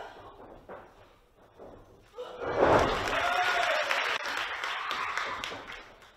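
A heavy thud on the wrestling ring mat about two seconds in, followed at once by loud crowd applause and shouting that fades out near the end.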